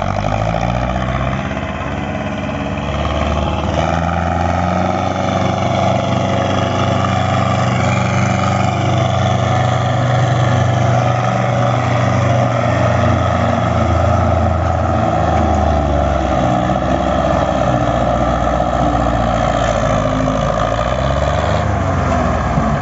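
Belarus diesel tractor engine running steadily under heavy load while it pulls a trolley piled high with sugarcane.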